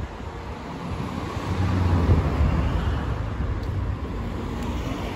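Street traffic noise: a low rumble and hiss of road traffic that swells about two seconds in, then settles.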